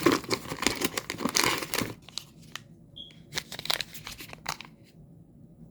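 Packaging crinkling and rustling as products are handled and pulled from a shipping box: a dense run of crackles over the first two seconds, then scattered clicks and taps, with a brief high squeak about three seconds in.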